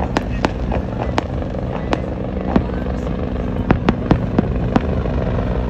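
Fireworks going off: about ten sharp bangs at irregular intervals, several in quick succession about four seconds in, over a steady low rumble.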